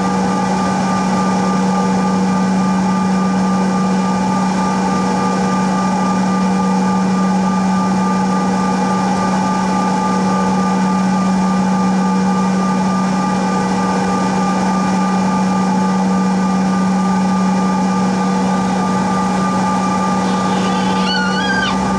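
Cabin noise inside a Bombardier CRJ-900LR on the ground: the rear-mounted turbofan engines idling with the air conditioning, a loud steady hum with several steady tones over it. A brief wavering tone sounds near the end.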